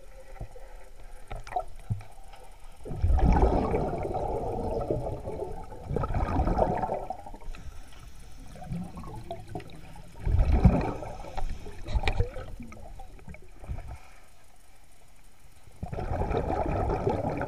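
A scuba diver's exhaled bubbles heard underwater: the regulator releases a gurgling rush of air in four bursts a few seconds apart, one per breath.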